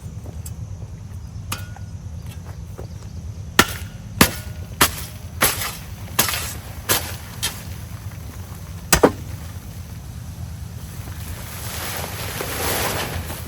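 A run of about eight sharp knocks, roughly one every two-thirds of a second, over a steady low hum, with a swelling rush of noise near the end.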